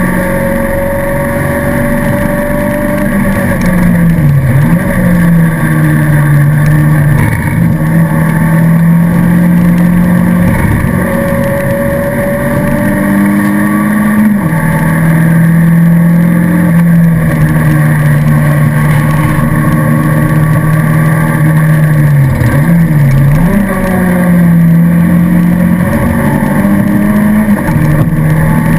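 Alfa Romeo 155 race car's engine heard from inside its stripped, roll-caged cockpit, running hard at high revs on track. It dips and picks up again briefly for a corner about four seconds in and again about three quarters of the way through, with a gear change near halfway.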